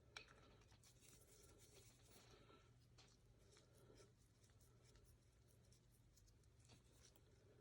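Near silence, with faint scratchy rubbing from working grease and lube on rifle parts over a steady low hum.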